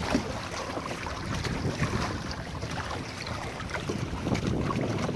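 Choppy water splashing and slapping irregularly against the hull of a Hobie sailing kayak under way, with wind rumbling on the microphone.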